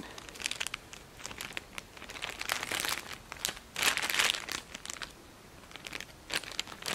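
Crinkling and rustling of a wrapped toy's packaging as a squirrel monkey handles it and tries to open it, in irregular bursts, loudest about four seconds in.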